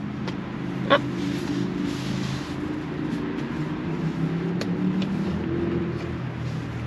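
Steady low hum of a vehicle running nearby, with a sharp click about a second in and a few lighter clicks as hands work a fabric seat-back protector into place on a car seat.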